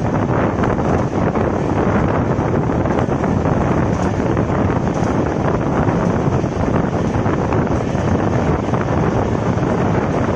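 Wind rushing over the microphone held out of a moving passenger train, over the steady rumble of the coach's wheels on the rails.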